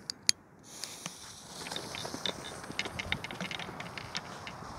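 A sharp click as a small F1 Kobold Bombette firework is lit. Its fuse catches and it sizzles with a steady hiss and scattered crackles for about four seconds.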